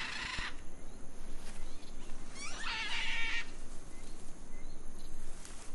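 Scarlet macaws giving two harsh, raucous squawks: a short one ending about half a second in, and a longer one about two and a half seconds in.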